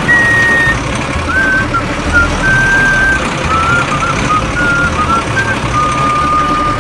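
A simple tune of clear single notes that step up and down in pitch, over a steady mechanical rumble like a small vehicle's motor running.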